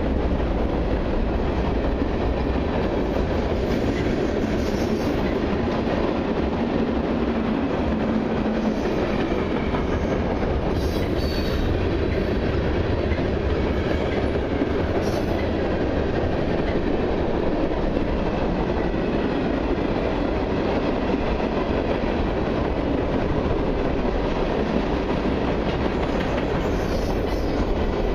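Freight cars of a long mixed freight train, boxcars and tank cars, rolling past close by: a steady rumble and clatter of steel wheels on the rails.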